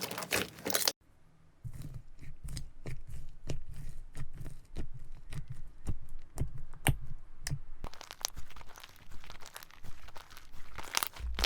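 Slime being squeezed and worked by hand, giving irregular crackling and popping clicks. A brief near-quiet gap comes about a second in, and the clicking then starts again.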